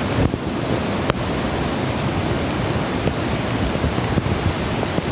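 Steady rushing noise of a waterfall in monsoon flood, with wind buffeting the microphone.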